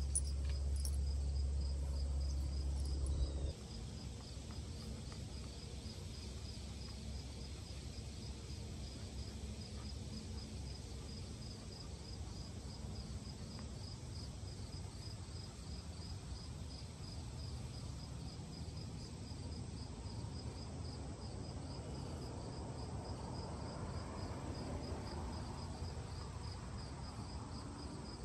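Insects chirping in a steady, evenly pulsing high trill. A low rumble sits under it for the first few seconds, then stops suddenly.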